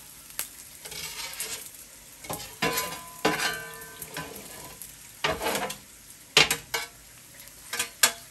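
Metal spatula scraping across a hot steel flat-top griddle, pushing fried rice into a metal food-mover scoop in a series of short scrapes, some with a squeal, the loudest about six seconds in. A low sizzle from the hot griddle runs underneath.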